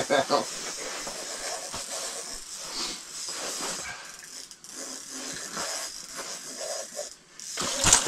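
A steady hiss with faint, low, muffled voices under it, and a brief louder rustle near the end.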